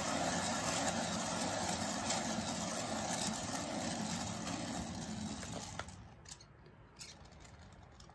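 Paint-pouring spinner whirring steadily as it spins a freshly poured tile, then winding down and stopping about six seconds in, followed by two faint clicks.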